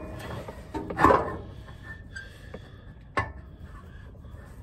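Metal exhaust parts clanking and scraping as the Prius exhaust gas heat exchanger is held up and worked onto its hanger hooks. One louder clank comes about a second in, then a sharp click a couple of seconds later.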